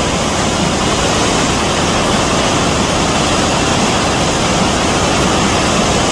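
Athabasca Falls: water plunging and rushing, a loud, steady, unbroken rush.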